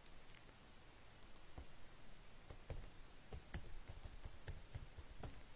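Faint keystrokes on a computer keyboard: a quick, uneven run of key clicks as a password is typed in.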